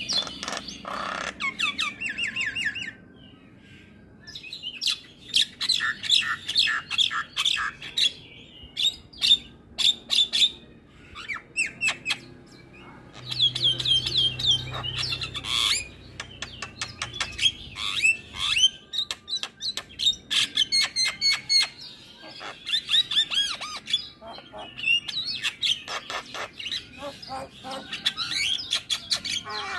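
Javan myna singing a long, varied song of rapid chirps, whistles and harsh notes in quick runs, broken by a couple of short pauses.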